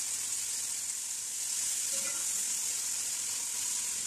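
Sliced onions sizzling steadily in hot oil, just added to fry until light golden.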